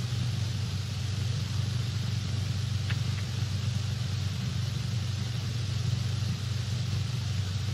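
Steady low hum with hiss: the background noise of an early-1930s optical film soundtrack, with a faint click about three seconds in.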